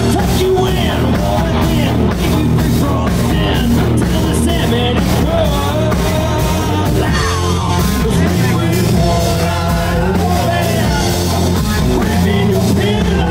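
Live rock band playing loud: a male singer over electric guitars and a drum kit.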